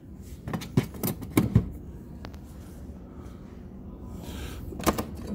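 Hard plastic clicks and knocks from a Hart plastic tool box being handled, its lids and latches snapping. There are a few sharp clicks in the first second and a half and a quick pair near the end.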